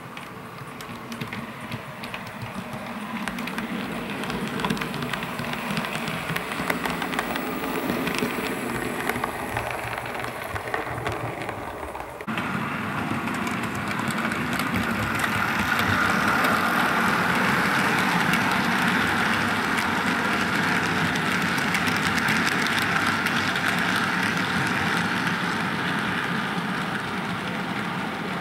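00-gauge model trains running on the layout, a steady mechanical running sound. It changes abruptly about twelve seconds in, then gets louder and stays steady as a goods train passes, fading slightly near the end.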